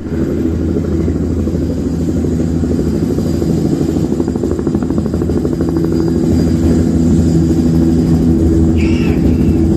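A recorded helicopter sound effect played back through hi-fi floor-standing speakers (Dali Helicon 300 mk2) and picked up by a phone's microphone: a steady low rotor drone with a rapid chopping beat.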